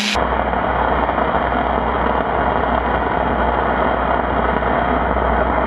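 MIG welder laying one long continuous bead on a steel golf cart frame rail: the arc gives a loud, steady, unbroken buzz throughout.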